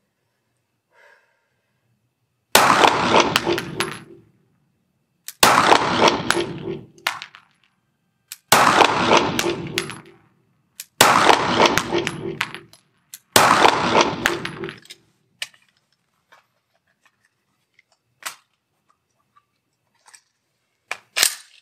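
Five pistol shots fired one at a time, roughly three seconds apart, each ringing out in the reverberation of an indoor range. A few faint clicks follow, and a sharp clack comes near the end.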